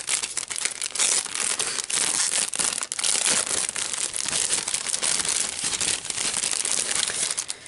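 Clear cellophane bag crinkling continuously as hands open it and slide out a stack of paper doilies, a dense crackle of many small clicks.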